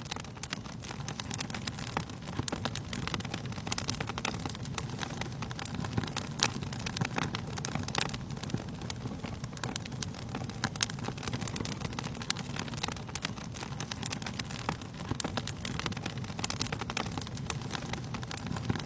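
Wood fire crackling: a steady low rush with many irregular sharp pops and snaps.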